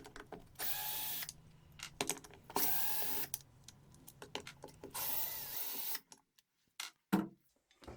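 Cordless screwdriver with a hex bit running in three short bursts of under a second each, backing out the hex screws that hold the office chair's seat to its mechanism. A few sharp clicks follow near the end.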